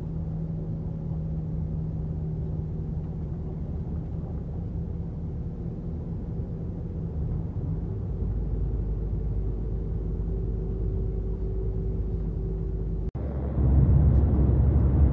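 Heavy truck cab interior while driving: a steady diesel engine drone with road noise. About two seconds before the end the sound drops out for an instant and returns as a louder, deeper rumble.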